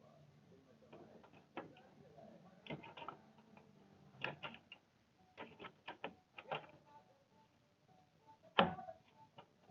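Faint, irregular clicks and taps of a graphics card being handled and fitted into a motherboard's PCI Express slot, with one sharper knock about eight and a half seconds in.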